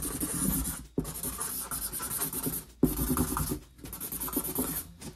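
Sharpie marker scribbling fast, its felt tip scratching in quick back-and-forth strokes, with short breaks about a second in and again near three and four seconds.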